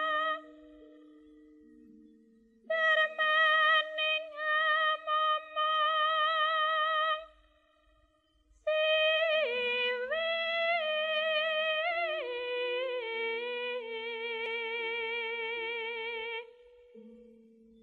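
Female voice singing a Javanese ladrang in long held phrases with heavy vibrato, breaking off twice, over steady sustained accompaniment notes that carry on through the pauses.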